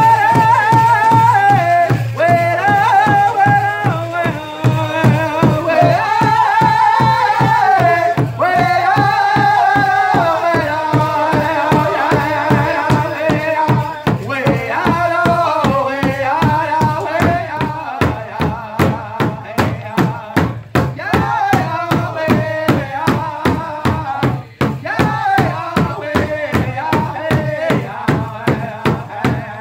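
Powwow drum group: several singers strike a large hide-headed powwow drum in unison with padded sticks, keeping a steady beat while singing a chant-like song together. The singing is strongest in the first half, and the drumbeats stand out more in the second half.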